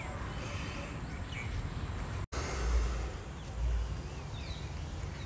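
Outdoor ambience: a few birds giving short falling chirps over a steady low rumble. The sound drops out briefly about two seconds in.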